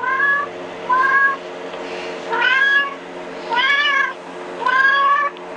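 Recorded kitten meows played through a phone's speaker: five high mewing calls, each about half a second long and roughly a second apart, over a steady low hum.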